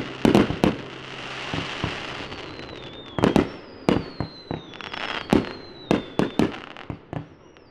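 Fireworks display: a quick series of about twenty sharp bangs from bursting shells, with a hissing crackle after the first few and several falling whistles from about two seconds in.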